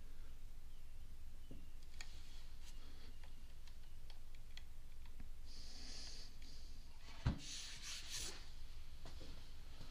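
Hot branding iron pressed into the maple handle of a cutting board: faint hissing and small crackles as it burns into the wood. A single knock about seven seconds in, followed by a brief louder hiss.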